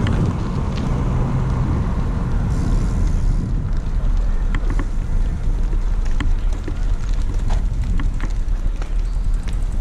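Wind rumbling on a moving bike camera's microphone as the bicycle rolls slowly, with a few scattered faint clicks.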